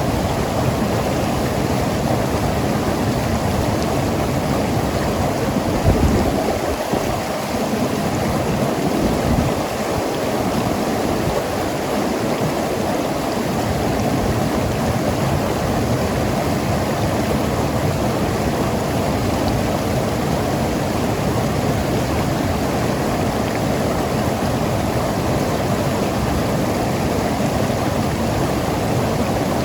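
Mountain river flowing and tumbling over rocks: a steady rushing, gurgling water sound, with a brief louder surge about six seconds in.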